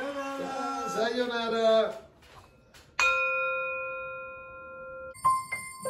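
A woman's voice for about two seconds, then a single bell chime struck about three seconds in, its clear tone fading slowly for about two seconds. Music with jingling comes in just before the end.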